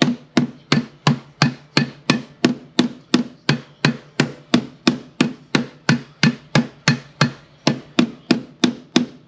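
Hammer blows on the sheet-steel footwell floor panel from the back side while a heavy weight is held against the other side, to close a gap where the seam did not sit. A steady run of sharp strikes at close to three a second, which then stops suddenly.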